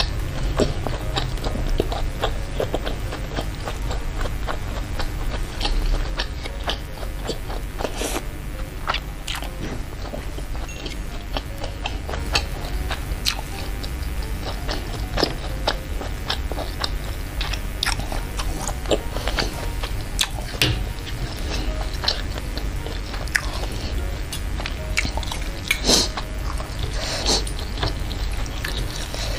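Close-up chewing of bakso meatballs: a steady run of small wet mouth clicks and bites. Near the end a metal spoon and fork clink and scrape as a meatball is cut apart in the chili broth.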